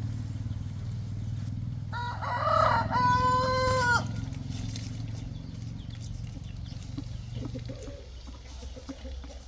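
A rooster crowing once, a two-second cock-a-doodle-doo ending in a long held note. A low steady hum runs underneath and fades out about eight seconds in.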